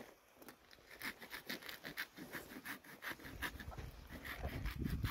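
Hand saw cutting through a small Christmas tree trunk: quick, even back-and-forth strokes, about four or five a second, faint, as the cut nears the end.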